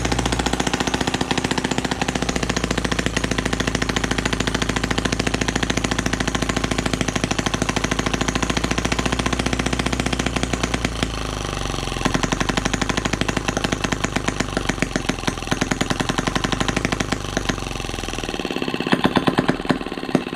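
Eachine ET5 miniature single-cylinder OHV four-stroke petrol engine running fast with a rapid firing beat, freshly started and still being tuned at its carburettor fuel screw. About eleven seconds in its speed dips, and near the end it slows to a few separate, louder pops as it runs rough.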